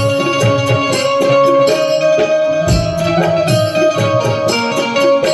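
Loud Indian folk-style music played over a sound system: a held keyboard melody over a steady drum beat with tambourine-like percussion.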